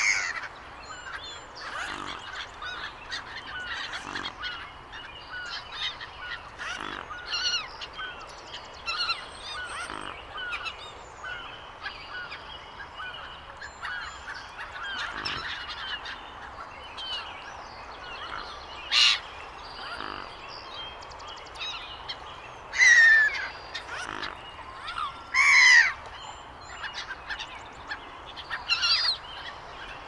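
A flock of gulls calling over open water: many short, harsh calls, with a few louder calls that fall in pitch near the end.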